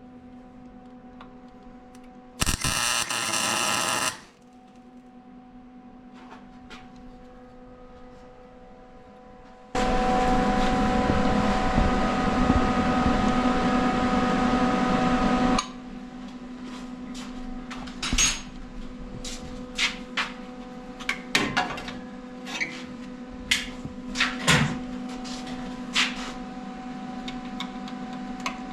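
Mechanic's tools working on a car engine. A tool runs briefly about two seconds in, then runs for about six seconds in the middle. After that come scattered clinks and knocks of hand tools on metal, over a steady hum.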